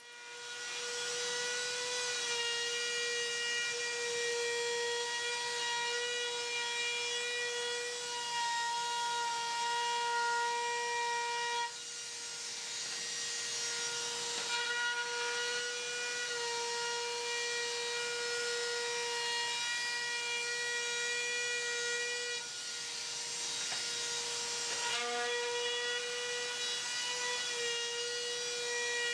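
Compact trim router spinning up and then running with a steady high whine as a 1/8-inch round-over bit cuts the edges of a walnut and maple end-grain cutting board; the whine wavers slightly as the bit bites.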